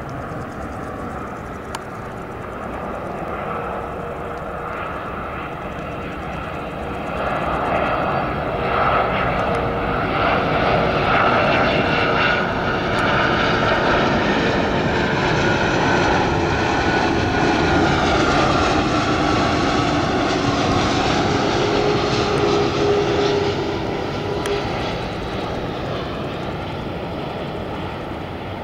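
Airbus A330 airliner on landing approach with gear down, passing low overhead: its twin jet engines' whine and rush swell, stay loud as it passes, then ease off. The whine drops in pitch as it goes by.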